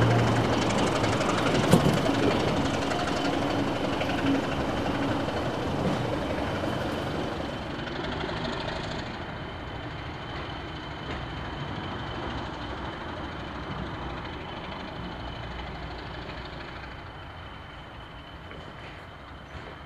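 Train of passenger coaches hauled by a Class 27 Sulzer diesel locomotive rolling away along the track, its wheels and engine running together. There is a sharp wheel click over a rail joint about two seconds in, and the sound fades steadily as the train draws off.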